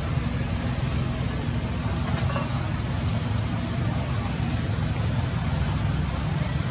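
Steady outdoor background noise: a constant low rumble with a steady high-pitched hiss on top and a few faint ticks.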